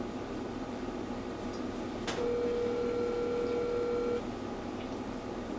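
Telephone ringback tone over a phone's speaker: a sharp click about two seconds in, then one steady ring tone lasting about two seconds. It signals an outgoing call ringing at the other end, not yet answered.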